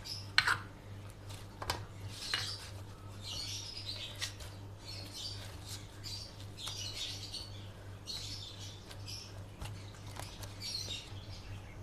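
Hands kneading soft, ghee-greased cooked semolina dough in a stainless steel bowl: repeated soft squishing and slapping as the dough is pressed and folded, with a few sharp clicks against the metal bowl in the first couple of seconds. A steady low hum runs underneath.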